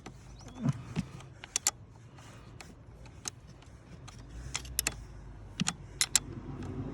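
Irregular sharp metallic clicks and clinks of a hand wrench working the car battery's terminal clamp as it is tightened back down, over a steady low hum.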